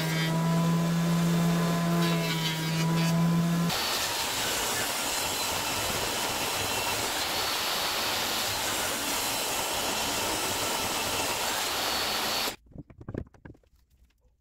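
Benchtop jointer running with a steady, even-pitched motor hum as the edge of an end-grain board is passed over it. About four seconds in this gives way to a table saw running, a loud even noise, which stops abruptly near the end, leaving a few faint clicks.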